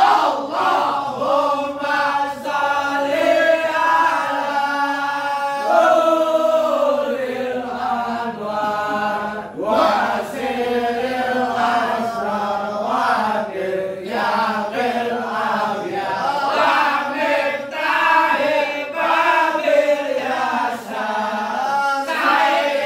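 A group of worshippers chanting sholawat, devotional Arabic praise of the Prophet, together in unison with voices only, a continuous sung melody with held and bending notes.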